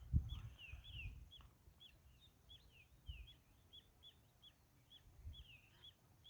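Small birds chirping, short high notes repeating several times a second, with a few soft low thumps of footsteps.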